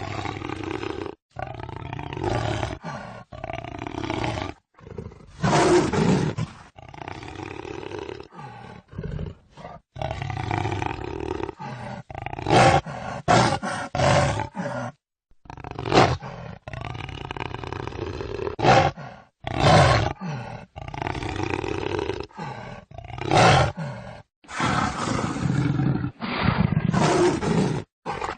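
Jaguar roaring and growling: a string of rough roars, several short and loud ones standing out, with sudden cuts between them.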